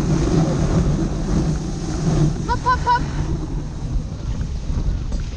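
Dog sled runners sliding over artificial snow, with wind on the microphone, as the sled moves behind a running two-dog team. About halfway through, a quick run of four short high chirps.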